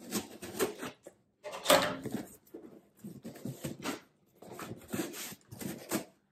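Scissors slitting the packing tape along a cardboard box's seam in several scraping strokes. Near the end, cardboard flaps scrape and rustle as they are pulled open.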